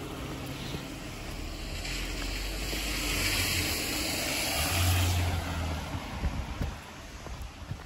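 Tyres hissing on a wet road as a vehicle passes, swelling to a peak about five seconds in and then fading, with low wind rumble on the microphone.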